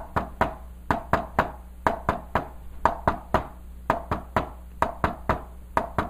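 Hand tapping on a whiteboard in quick groups of three, about one group a second. The taps imitate the S1–S2–S3 rhythm of a third heart sound (ventricular gallop).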